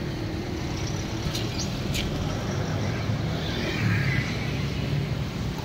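Street traffic noise: a steady low rumble of motor vehicles running nearby, swelling briefly about four seconds in, with a couple of light clicks near the start.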